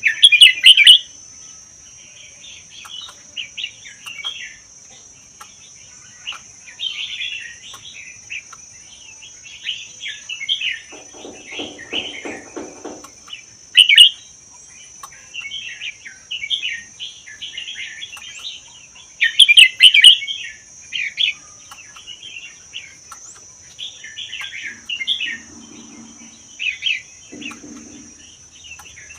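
Red-whiskered bulbul singing a run of short, bright chirping phrases, loudest about a second in, midway and about two-thirds of the way through. A steady high-pitched drone sits under the song.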